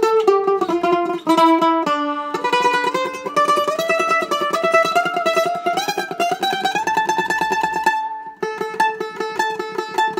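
Ibanez 525 mandolin played with a pick: a few separate picked notes in a falling line, then from about two seconds in a slowly rising melody held out with fast tremolo picking. After a short break near the eight-second mark come quick, evenly repeated picked notes.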